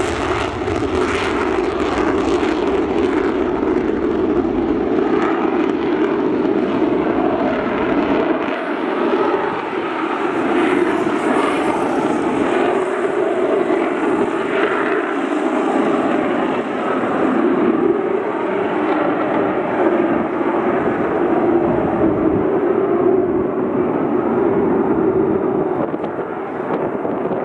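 Loud, steady jet-engine noise from a USAF F-15C Eagle on its takeoff roll and climb-out. The deepest rumble drops away about eight seconds in, and the rest carries on steadily.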